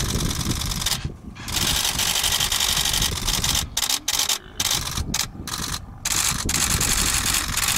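Camera shutters firing continuous high-speed bursts, a rapid clatter of clicks in several runs that stop and restart with short breaks.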